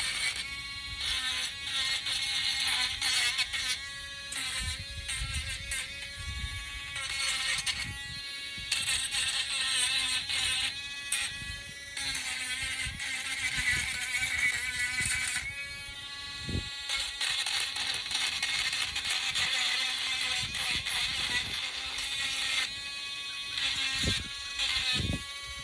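Small electric sander running with a steady motor whine, its pitch and strength shifting every few seconds as wood is pressed against it to grind off burrs.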